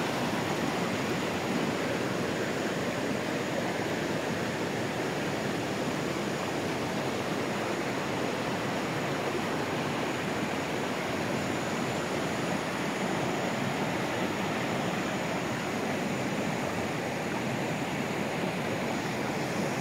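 Shallow river water running over and between boulders in small riffles: a steady rush of flowing water.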